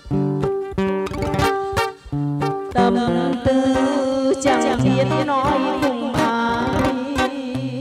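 Acoustic guitar picking a melody alone, then a woman's voice begins singing a Vietnamese ballad about three seconds in, held notes with vibrato, through a microphone and speaker, over the guitar accompaniment.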